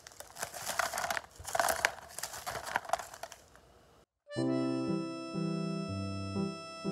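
A foil snack bag crinkling as it is shaken and snacks are tipped out into a plastic tub, in scattered rustling bursts. Just after four seconds in it cuts to background music of held chords.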